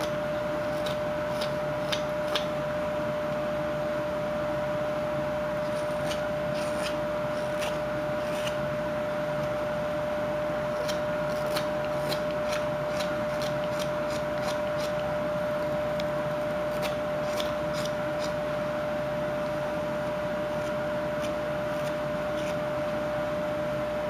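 Whittling knife paring a wooden carving block: small crisp cuts and scrapes come in scattered clusters, over a steady hum.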